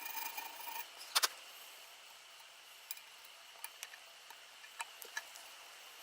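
Hand work on a metal swing arm: a short scraping sound that stops under a second in, a sharp double click just after, then scattered light ticks and taps.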